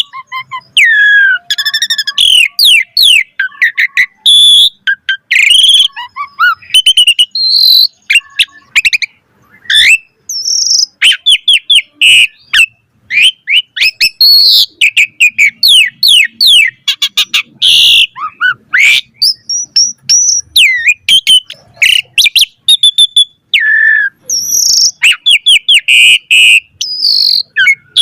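Asian pied starling in full, varied song: rapid runs of whistles, chirps and sliding notes, loud and close, broken by short pauses.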